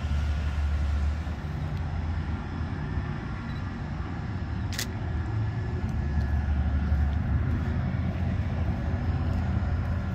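Steady low rumble of traffic on a nearby highway, with one short sharp click about halfway through.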